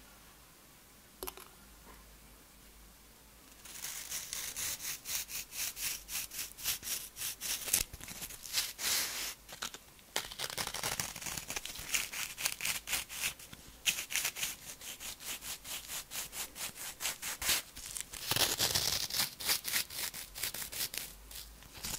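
Thin wooden skewer being pushed through brittle freeze-dried strawberries, which give a dense run of rapid, dry, crisp crackles as they are pierced and handled in gloved fingers. The crackling starts about four seconds in and pauses briefly about ten seconds in.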